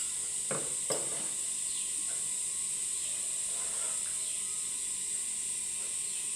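Insects droning steadily in a high, even hiss, with two short clicks about half a second and a second in.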